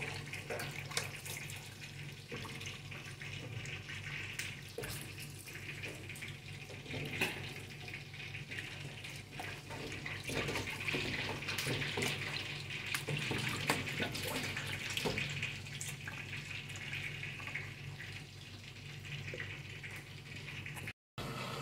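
Kitchen tap running steadily into a sink while lettuce is washed, with scattered light clicks and knocks of hands and produce against a metal tray.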